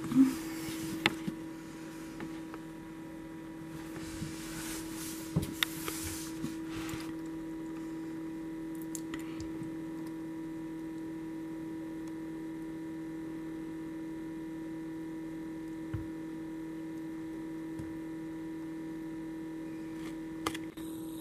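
Steady electrical hum of an egg incubator, with a few faint clicks and short scratchy rustles in the first several seconds and one more click later on.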